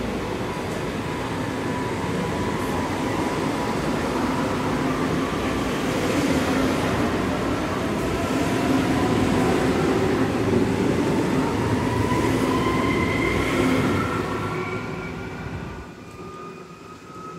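Munich S-Bahn electric multiple unit pulling out and accelerating away: a wheel-and-rail rumble with its traction motors whining in several rising tones, growing louder, then fading quickly near the end as the train recedes.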